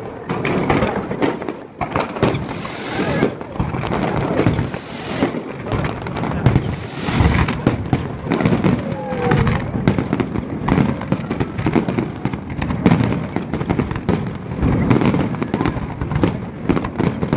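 Fireworks display: aerial shells launching and bursting in quick succession, a dense run of bangs and pops that goes on without a break.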